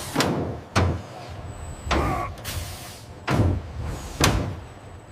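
Hydraulic test rig working under load, with a series of heavy thuds and slams about once a second at uneven intervals: the hydraulics engaged for a fatigue test of a helicopter main rotor hub.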